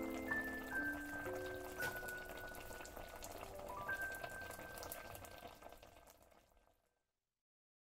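Light bubbling and crackle of a pan of milkfish and guava soup simmering, under slow background music of held notes; both fade out near the end.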